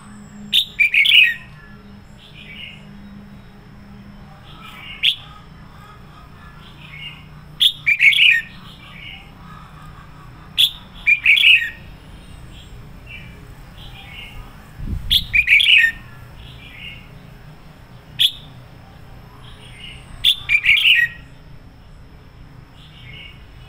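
Red-whiskered bulbul singing loud, fired-up song: a short burst of rapid notes every two to three seconds, with softer notes in between.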